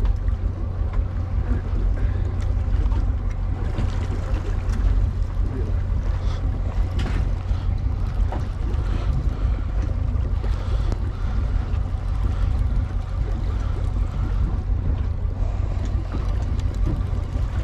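Fishing boat under way at trolling speed: a steady low engine drone, with wind rumbling on the microphone.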